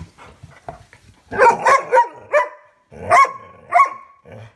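A young yellow Labrador retriever barking at his chew bone: a quick run of four high barks about a second in, then two more, the last one held longer.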